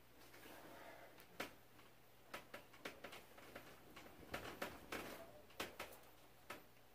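Faint rustling of a comforter and bedding, with scattered soft knocks, as someone throws off the covers and sits up on a bed.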